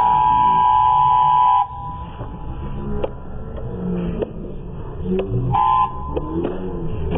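A loud whistle blown in one long steady blast that cuts off about a second and a half in, then a short blast near the end, with sharp clicks in between.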